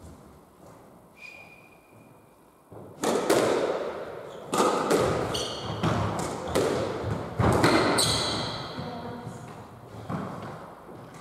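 Squash rally: sharp, echoing strikes of the ball off rackets and the court walls, starting about three seconds in, with court shoes squeaking on the wooden floor now and then. The strikes stop about two-thirds of the way through, and there is one more knock near the end.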